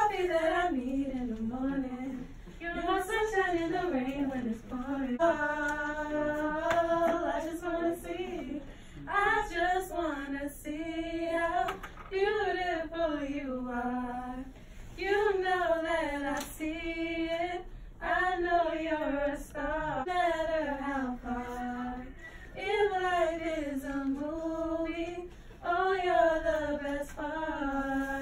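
Teenage girls' voices singing a song a cappella, in phrases of a few seconds with short breaths between them.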